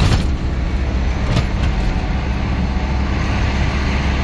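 Steady low engine and road drone inside a moving vehicle's cabin, with a couple of short knocks, one at the start and one about a second and a half in.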